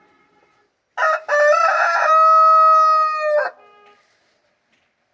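A rooster crowing once, starting about a second in: a short broken opening, then a long held note that stops sharply. Fainter calls come just before and just after it.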